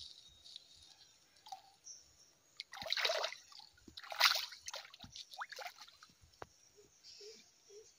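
Fish splashing at the surface of a pond as they take feed, with two loud splashes about three and four seconds in and smaller splashes and drips between.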